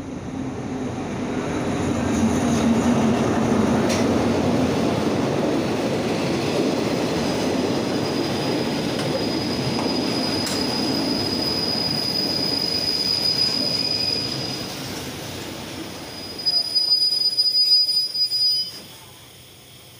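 State Railway of Thailand passenger train rolling past the platform: a steady rumble of wheels on rail that builds over the first two seconds, with a thin high wheel squeal from about six seconds in. Near the end the rumble eases and a few seconds of louder, sharp irregular clatter and squeal follow.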